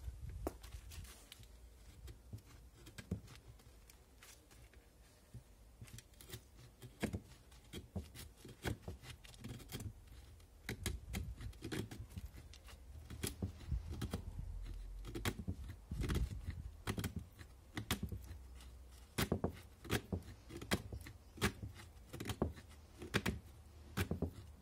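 Folding-knife blade scraping and shaving very hard holm oak wood to raise fine shavings, a long series of short, irregular scraping strokes that come more often in the second half.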